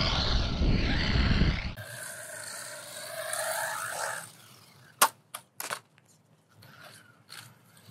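DEERC 302E brushless RC truck running on concrete: the motor's electric whine rises as it speeds up, over a low rumble of tyres. After a break, a softer whine wavers and falls away, followed by a few sharp clicks about five seconds in.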